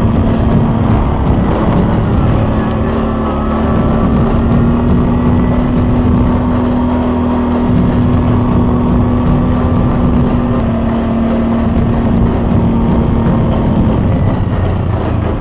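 CFmoto Terralander 800 ATV's V-twin engine running at a steady cruising speed, heard from the rider's seat with tyre and wind noise. The engine note eases slightly lower near the end.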